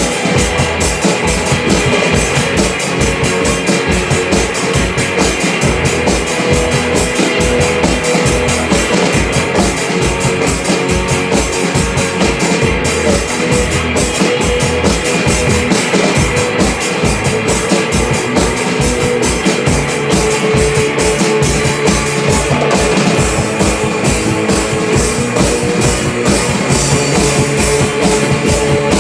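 Rock band playing an instrumental passage: a drum kit keeps a fast, steady beat under sustained held notes.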